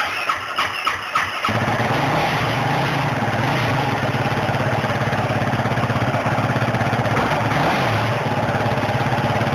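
2010 Yamaha YFZ450X quad's single-cylinder four-stroke engine, on its stock exhaust, cranking and catching about a second and a half in, then idling with an even pulse. There is one short blip of the revs near the end.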